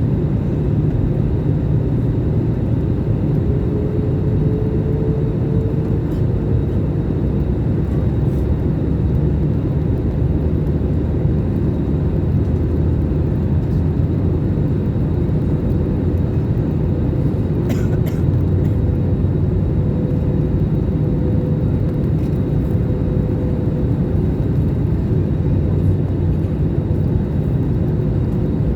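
Jet airliner's engines and airflow making a steady low drone, with a faint tone that glides up slightly a few seconds in.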